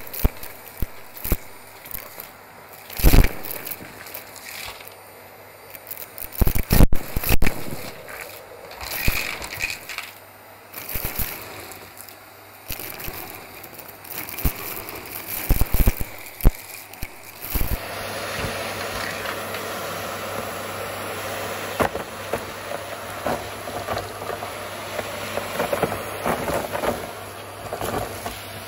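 Shredded paper, cardboard, plastic scraps and coins being dropped onto a carpet, making scattered rustles, crackles and knocks. Just over halfway through, a steady machine noise starts and runs on.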